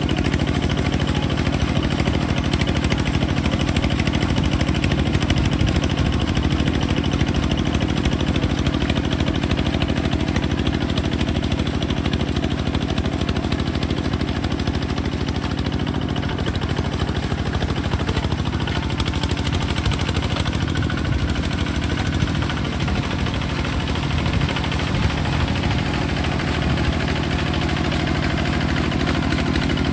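Kubota bulldozer's engine running steadily at a low, even speed.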